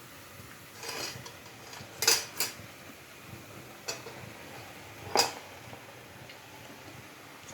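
A metal utensil clinking against a frying pan about five times while potatoes are being fried, with the loudest knocks about two and five seconds in.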